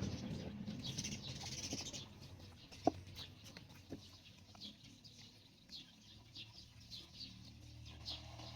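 Birds chirping: short, high chirps repeated irregularly, with a sharp click about three seconds in.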